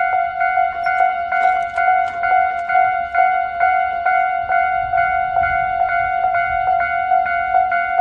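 Japanese railway level-crossing warning alarm ringing its standard electronic bell tone, a steady ding-ding repeating about twice a second.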